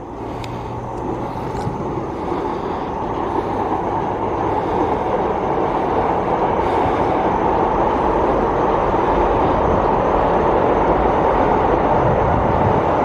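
Thunder rumbling as a long, continuous roll that builds gradually in loudness and then holds.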